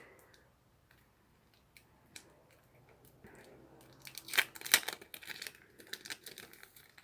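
Packaging crinkling and rustling as it is handled, mostly quiet at first and then a run of sharp crackles in the second half.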